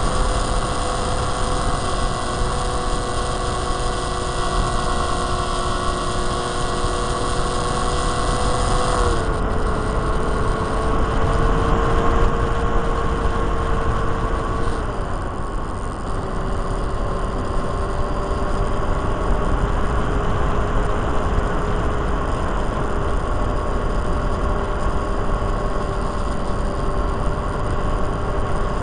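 A micro RC plane's electric motor and propeller whine steadily, heard from the onboard camera under heavy wind rush on the microphone. The whine drops in pitch twice, about 9 and 15 seconds in.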